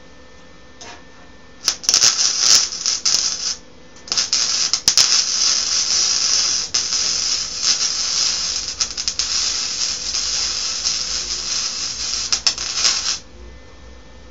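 Electric arc welding, the arc crackling and hissing: a short bead of about two seconds, a brief pause, then a steady run of about nine seconds that cuts off suddenly.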